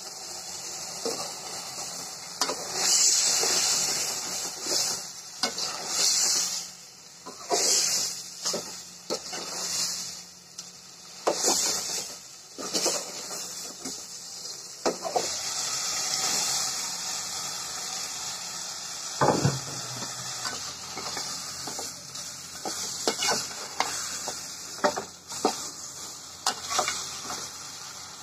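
Chicken feet curry sizzling in a metal pot while a metal spatula stirs it, with repeated scrapes and knocks of the spatula against the pot over a steady hiss.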